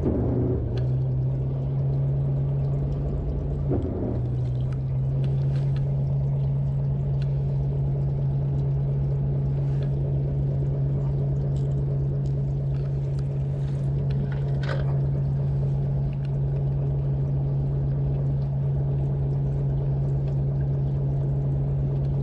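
Chartered fishing boat's engine running steadily, a constant low hum, with faint scattered light ticks.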